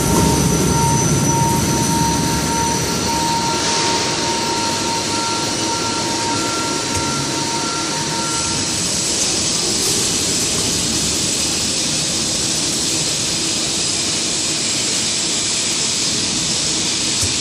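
Overhead crane travelling: steady mechanical running noise of its electric travel drives and wheels on the rails, with a steady whine at two pitches that stops about halfway through.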